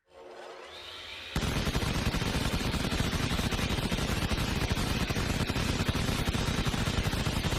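Vulcan-style rotary machine gun: a rising whine as the barrels spin up, then about a second and a half in, a continuous burst of fire so rapid that the shots blur together into one steady rattle.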